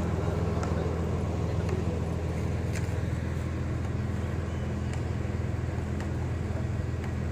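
Truck-mounted crane's diesel engine running steadily, a low drone, with a few faint clicks over it.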